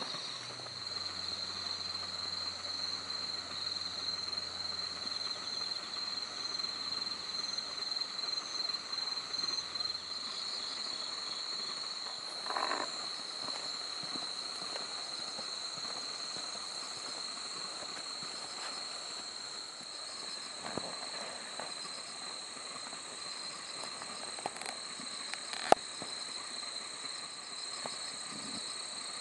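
Evening chorus of insects: a steady, high-pitched, slightly pulsing trilling. A low hum fades out about ten seconds in, and there is one sharp click near the end.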